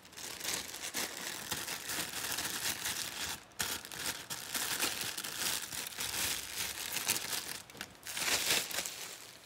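Plastic packaging crinkling as it is handled and pulled at during unboxing, with short breaks about three and a half seconds in and near eight seconds.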